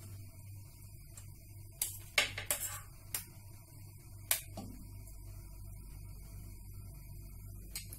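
Serving spoon tapping against a metal strainer and the rim of a non-stick pot while cooked rice is scooped in: a few sharp clicks and taps, bunched in the middle with one more near the end, over a steady low hum.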